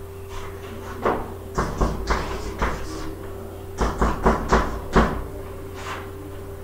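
Chalk striking and scraping on a blackboard as an equation is written: about ten sharp taps in two clusters, the loudest around four to five seconds in, over a steady low hum.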